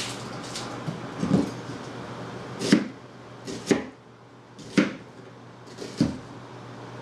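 Chef's knife slicing through an onion and knocking down on a plastic cutting board, about half a dozen cuts at roughly one-second intervals.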